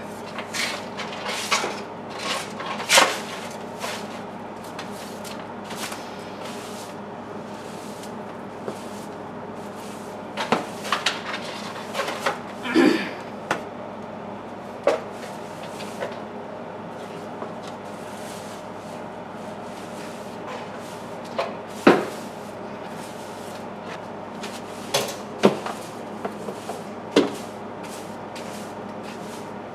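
Scattered knocks and clacks of hard objects being picked up and moved while clearing debris from under a refrigerator, over a steady low machine hum.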